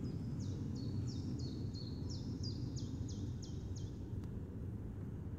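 A songbird singing a quick series of about ten high notes, each sliding downward, for a few seconds, over a steady low outdoor rumble.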